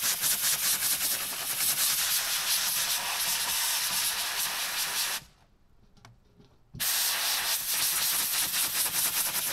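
Compressed-air blow gun hissing as it blasts dust out of an air filter element. The air cuts off for about a second and a half a little past halfway, then starts again.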